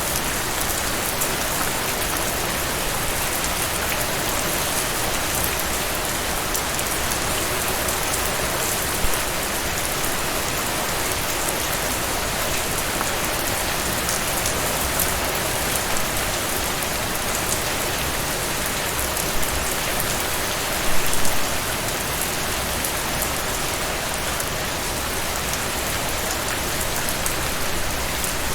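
Steady rain falling and pattering on surfaces, with a few louder drops or splashes standing out briefly, most of them about two-thirds of the way in.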